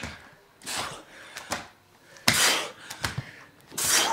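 Heavy breathing during push-ups: three hard exhalations about a second and a half apart, with a few light taps between them.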